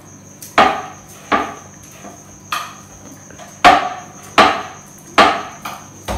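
Methi paratha dough being kneaded by hand on a wooden board: a series of sharp wooden knocks, roughly one a second, as the dough is pushed and pressed against the board.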